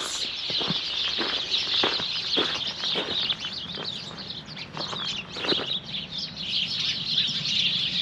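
Many small birds chirping at once in a thicket, a constant busy twittering with no single song standing out, with scattered short clicks among it.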